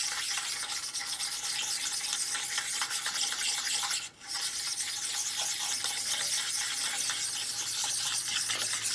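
Honing stone rubbed back and forth over hardened steel parallels, a steady dry scraping with a short break about four seconds in. The stone is catching on burrs and high spots on the parallels.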